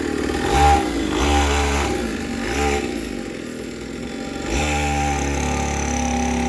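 A 50cc pocket quad's small engine revving up and down several times. It eases off to a lower, quieter note about three seconds in, then picks up again and runs steadily.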